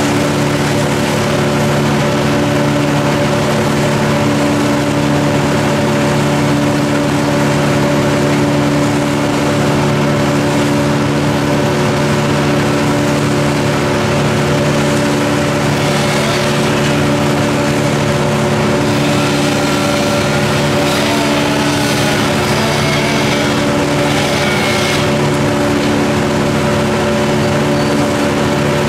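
An engine running steadily at one constant speed, its pitch unchanging throughout.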